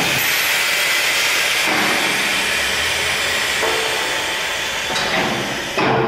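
Loud, steady hiss of rushing air at an FPEC vacuum paddle blender, briefly louder near the end.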